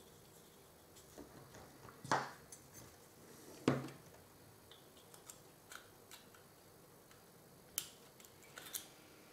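Hard plastic scale-model parts clicking and tapping against each other as the kit's engine is test-fitted into its cowling, with two louder knocks about two and three and a half seconds in and a few sharp clicks near the end.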